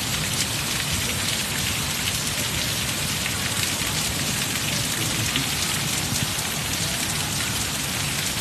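Heavy rain pouring down steadily: a dense, even hiss of drops on the street, the standing flood water and the parked car, with a low rumble underneath.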